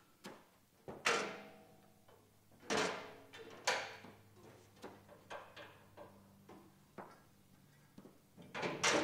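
Metal parts of a camp kitchen clanking and knocking as they are handled and fitted together, with a short metallic ring after each knock. The three loudest come in the first four seconds, lighter knocks follow, and a quick cluster comes near the end.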